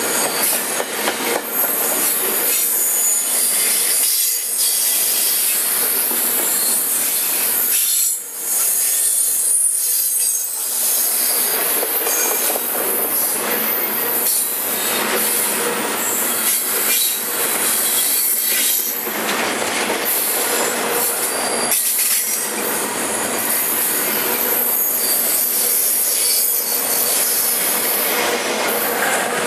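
Steel wheels of a double-stack intermodal container train's well cars running past on the rails right alongside: a steady, loud clatter and hiss of the passing cars, dipping briefly about eight seconds in.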